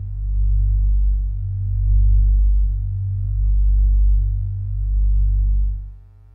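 Deep electronic drone of low steady tones, swelling and ebbing about every two seconds, then fading out near the end.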